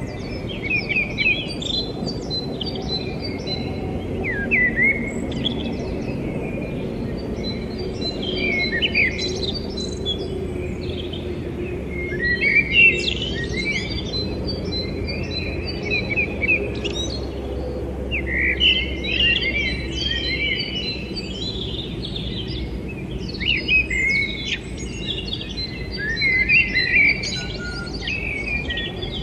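Small birds chirping and trilling, with quick, high notes coming in clusters every few seconds over a steady low hum.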